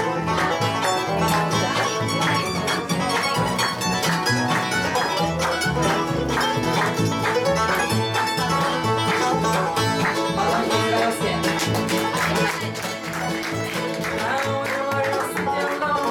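Bluegrass band playing an instrumental break, with the mandolin picking the lead over banjo, fiddle, acoustic guitar and a steady bass beat.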